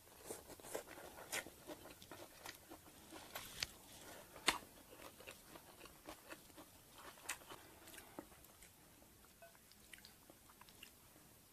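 Chewing a mouthful of crisp lettuce and herbs, a run of small crunches that is busiest in the first half, with the sharpest crunch about four and a half seconds in, and grows sparse near the end.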